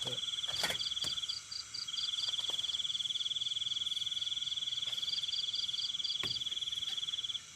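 A cricket trilling steadily in a fast, even buzz, breaking off briefly about a second and a half in and stopping near the end. A second insect chirps above it in short, evenly spaced pulses, and there are a few faint clicks.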